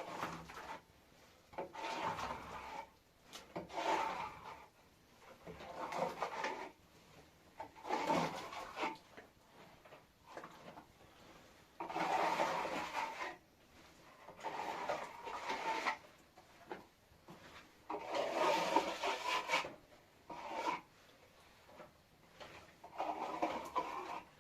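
Repeated rasping, rubbing strokes, each about a second long and coming every two seconds or so.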